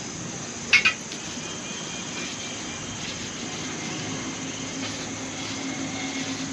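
Two quick metallic clinks in succession, as of steel tools or fork parts knocked together, over a steady workshop hiss and faint hum.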